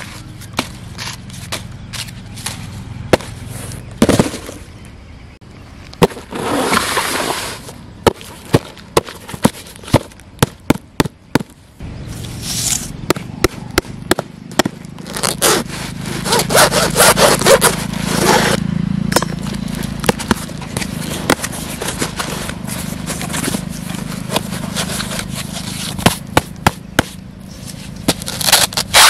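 Hands unpacking a cardboard box: newspaper packing crumpling and rustling, with cardboard flaps and a foam sheet handled, giving many sharp clicks and taps and a few longer rustling spells.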